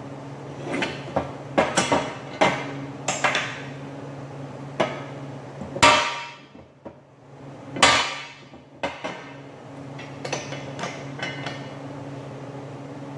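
A hammer striking metal: about a dozen irregular blows, the two heaviest about midway, one leaving a brief ringing tail.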